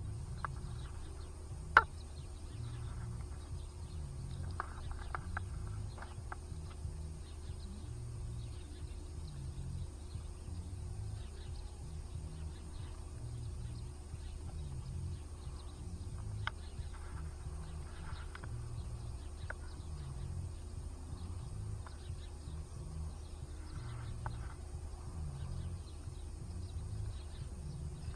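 Steady low outdoor background hum with a faint high whine, broken by a sharp click about two seconds in and a few faint brief chirps.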